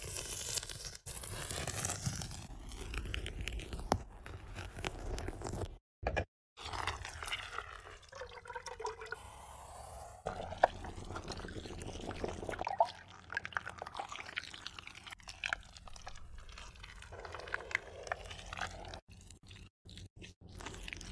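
Close-up food-preparation sounds in quick succession: crunching as a knife cuts into a pomelo's thick rind, liquid and sugar being poured into a pan, and a spatula spreading and scraping a thick orange paste. There are short silent breaks between the shots.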